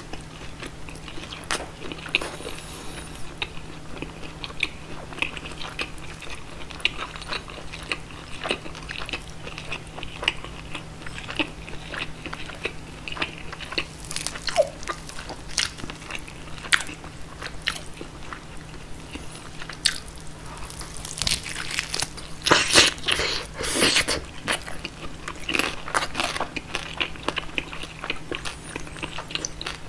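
Close-miked biting and chewing of a roasted German pork knuckle (schweinshaxe): the crisp skin crunches and crackles between moist chewing sounds, with bursts of louder bites about halfway through and again about two-thirds through.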